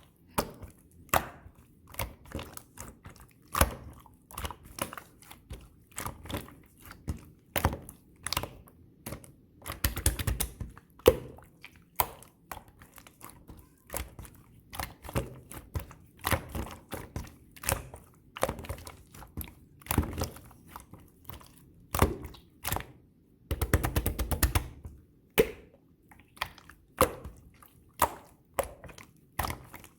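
Hands squishing and pressing a red marbled pearl slime, making sharp clicks and pops every half second or so, with quick runs of crackling pops about ten seconds in and again about three-quarters of the way through.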